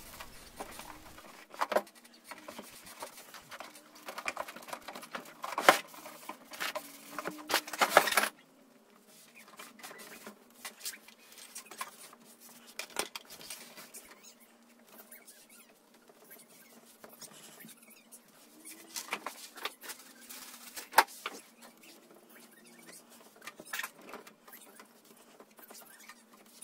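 Damp cloth wiping and rubbing over the plastic cabinet of a Sony Trinitron CRT television, with scattered light taps and knocks of hands against the plastic. The rubbing is busiest in the first eight seconds, then quieter, with an occasional sharper tap.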